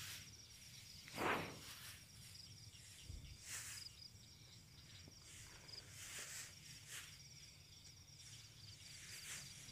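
A cricket chirping in a steady, rapid pulsed trill, heard faintly, with soft rustles of grass and footsteps now and then; the loudest rustle comes about a second in.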